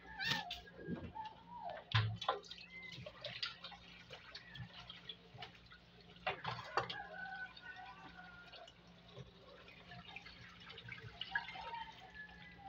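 Water dripping and splashing in a stainless steel sink, with small clinks and knocks of a metal basin, as raw fish is washed by hand.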